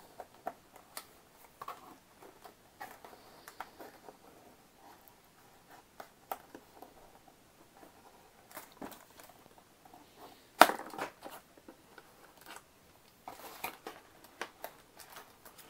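Small clicks, snips and rustles of plastic packaging ties being cut off a cardboard box insert, with one sharp, louder snap about ten and a half seconds in.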